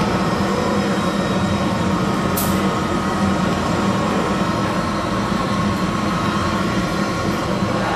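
Steady mechanical drone of simulated ship engines running, played by a touchscreen ship engine-control simulator as its throttle is worked.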